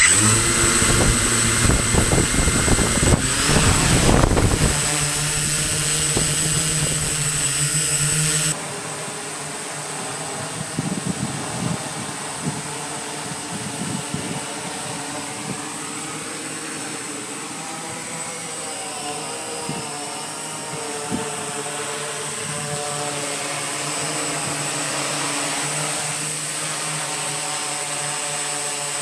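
Multirotor drone's electric motors and propellers whirring in flight. The first eight seconds or so are loud and rushing, with a steady high whine, then the sound drops suddenly to a quieter hum whose pitch wavers as the motors adjust.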